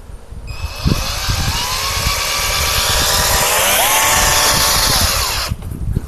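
Cordless drill running, spinning a dryer vent cleaning brush on flexible rods inside the vent duct. It starts about half a second in, speeds up twice, and stops shortly before the end.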